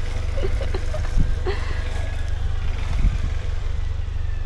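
2019 Honda CB125F's 125 cc single-cylinder four-stroke engine idling steadily, a low even drone with no revving.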